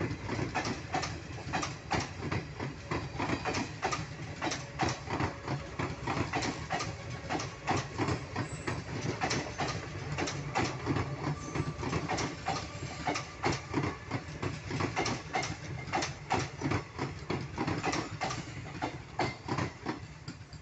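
Indian Railways passenger coaches rolling past at speed: a steady rumble with rapid, repeated clacking of the wheels over rail joints.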